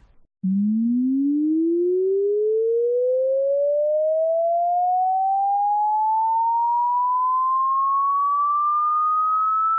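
A loud electronic pure tone sweeping steadily upward in pitch, from a low hum to a high whistle, starting about half a second in. It is an added effect standing in for how the bug-killing device sounds to bugs.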